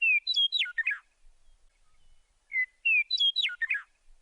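A songbird singing a short phrase of quick whistled notes that slide up and down, twice, about three seconds apart.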